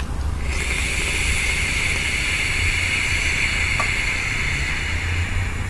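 Vape atomizer coil sizzling steadily through a long draw of about five seconds, over a steady low rumble.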